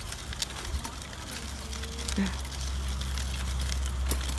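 Steady outdoor background of a shallow river's flowing water over a low steady rumble, with a few small clicks and a short vocal sound about two seconds in.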